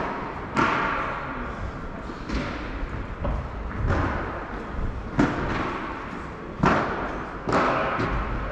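A padel ball being hit back and forth with padel rackets in a rally: about six sharp pops spaced one to two seconds apart, each echoing briefly in a large hall.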